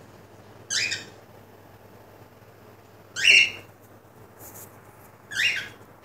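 Cockatiel giving three short, scratchy chirps about two and a half seconds apart, the middle one loudest.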